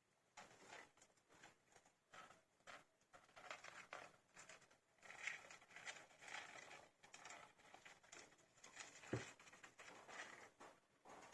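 Faint, irregular rustling and scrabbling of a litter of 15-day-old hamster pups moving about, with one sharp knock about nine seconds in.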